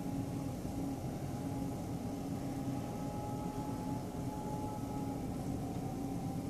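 Steady mechanical hum over a low rumble, with a few faint unchanging tones and no change in level.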